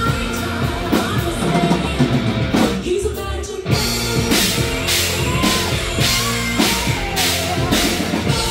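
Rock band playing live: drum kit, guitars and a singing voice. About four seconds in, the drums settle into a steady beat of about two strikes a second.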